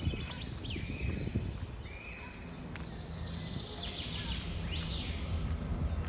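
Birds calling, several short whistled slurs and falling notes, over a steady low rumble.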